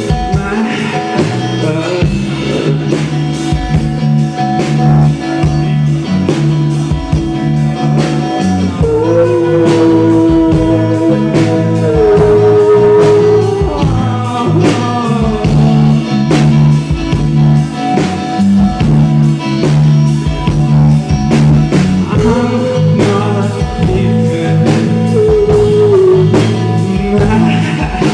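Live rock band playing: electric guitar, bass and drum kit, with a sung melody entering about a third of the way in and again near the end.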